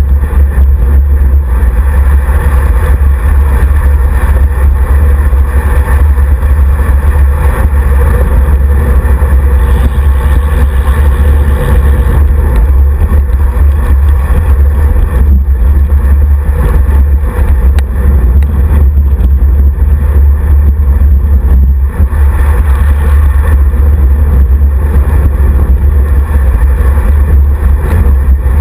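Loud, steady wind buffeting on a handlebar-mounted camera's microphone as a road bike rolls along, a heavy low rumble with road and tyre noise mixed in.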